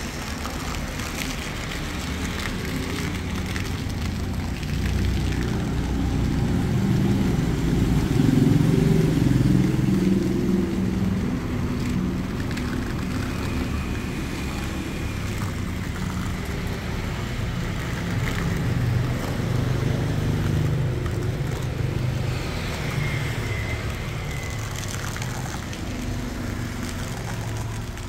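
Street traffic, cars and motorbikes passing, as a low rumble that swells and fades twice.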